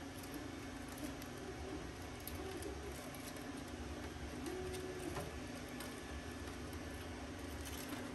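Faint clicks and rustles of wires being handled and fed into a sheet-metal control box, over a steady low hum. A couple of short, low wavering tones come in around the middle.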